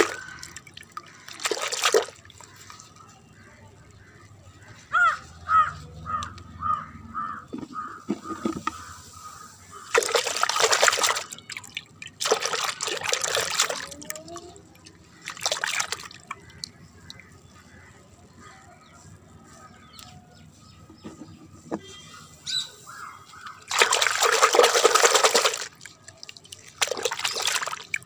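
Soapy water sloshing and splashing in a plastic bucket as hands scrub small plastic toys in it, in about six short bursts with quieter stretches between.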